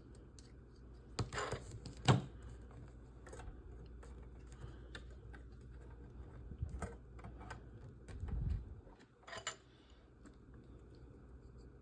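Scattered small clicks and taps of model-kit frame parts and screws being handled and fitted together, with a short low bump just past the two-thirds mark.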